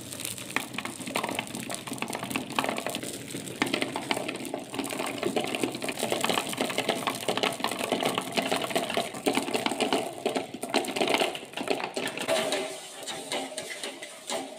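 Many marbles clattering down a cardboard slope, ticking off its rows of small tabs and rolling onto a card tray: a dense, continuous run of small clicks and rattles.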